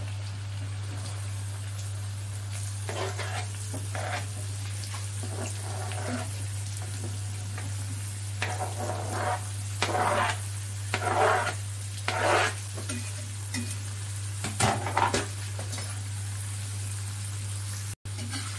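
Finely chopped red onions dropping into hot ghee and butter in an iron karahi and sizzling, with louder flare-ups of sizzling as batches land, between about 3 and 15 seconds in. A steady low hum runs underneath.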